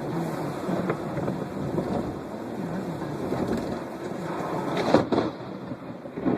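Steady rain of a thunderstorm, with one loud, sharp crack of thunder from a close lightning strike about five seconds in.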